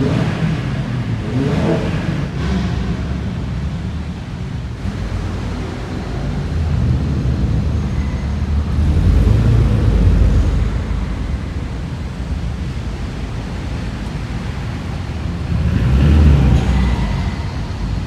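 Cars pulling away and driving past on a wet road, engines revving, with the loudest passes about nine seconds in and again near the end.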